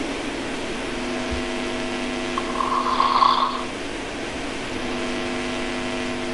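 A person snoring: one snore lasting about a second, starting about two and a half seconds in, over a steady hum.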